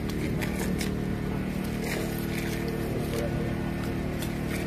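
Steady hum of an idling vehicle engine, holding an even pitch throughout.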